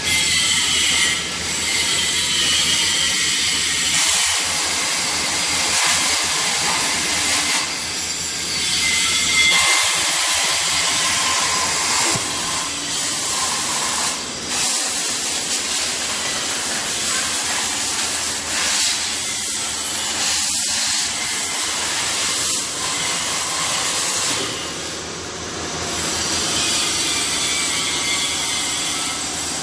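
Argon (TIG) arc welding: a steady hiss from the welding arc, wavering slightly in level.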